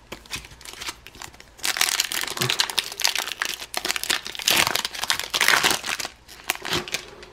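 Foil Pokémon booster pack wrapper being torn open and crinkled by hand, a dense crackle that grows loud about a second and a half in and dies down near the end.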